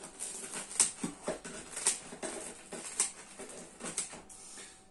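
Kitchen scissors cutting through the baked crust of a pan pizza: a run of short, crunchy snips, about two a second.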